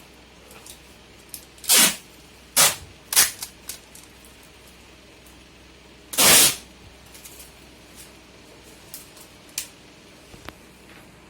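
Several short hissing bursts, the last and longest lasting about half a second, with small clicks between them.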